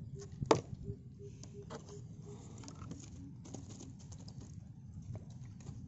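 Handling noises around a small fish in a mesh net bag: one sharp knock about half a second in, then scattered light taps and rustles.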